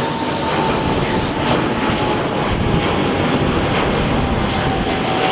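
Boeing 787-9 Dreamliner's jet engines at takeoff power: a loud, steady jet noise with a thin whine slowly falling in pitch.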